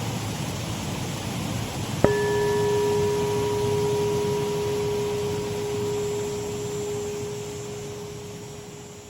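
Shallow waterfall running steadily; about two seconds in a Tibetan bell is struck once and rings with one long tone that slowly dies away, while the whole sound fades out near the end.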